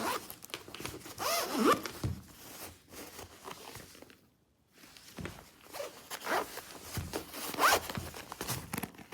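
Zipper of a tomtoc 15.6-inch laptop case being pulled, a rasping run of rising and falling pitch, in two stretches with a brief pause near the middle.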